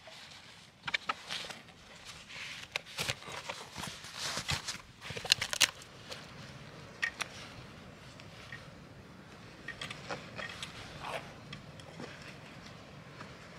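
Metal clicks, clinks and scrapes of a hand fitting and fastening a tubular steel luggage support to the rear frame of a Royal Enfield Classic 350 motorcycle. A quick run of clinks in the first six seconds, then only scattered small clicks.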